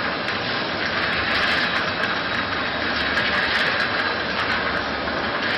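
Peanuts tumbling and rattling against the wall of a rotating 304 stainless steel coating pan as they are coated with flour: a steady, dense rushing rattle that does not let up.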